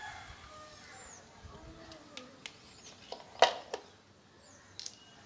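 Fingernails pinching nits off strands of hair, giving a few sharp clicks, the loudest about three and a half seconds in. Faint background voices and high bird chirps.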